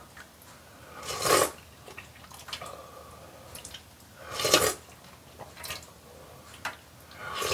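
A person slurping instant ramen noodles loudly twice, once about a second in and again about four and a half seconds in. Light clicks of chopsticks against the metal pot come in between.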